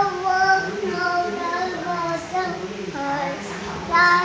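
A toddler singing in a high voice, a string of short held notes.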